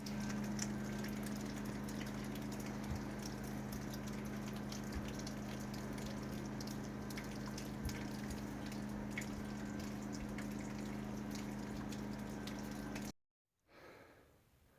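A steady low mechanical hum with a hiss over it and a few faint clicks, cutting off suddenly near the end.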